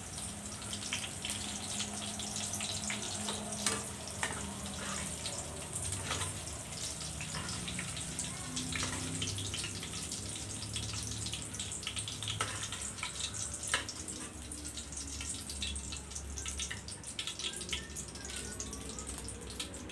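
Hot cooking oil in a metal wok sizzling and crackling steadily with scattered sharp pops, as fried chilies are lifted out of it.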